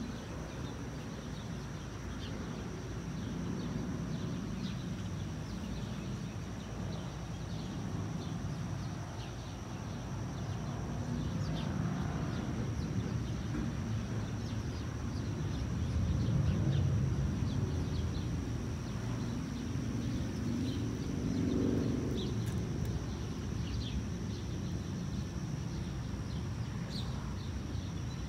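Outdoor ambience: a continuous low rumble that swells and fades a few times, a steady thin high-pitched tone, and scattered faint bird chirps.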